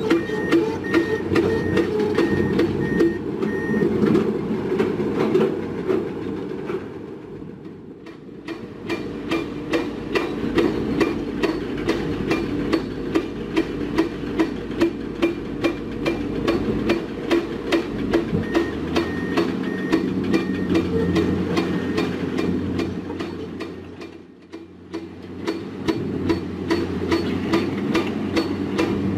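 Heavy construction machinery running: a diesel engine drone with sharp, regular clanking several times a second, and a reversing alarm beeping in two spells, at the start and about two-thirds of the way through.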